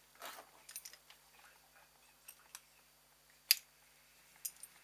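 Scattered light clicks and clinks of hand tools and engine parts being handled during engine teardown, with the sharpest click about three and a half seconds in.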